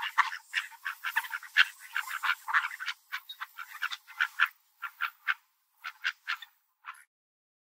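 Mallard ducks quacking: a quick run of short, overlapping quacks that thins out into spaced single quacks and stops abruptly about seven seconds in.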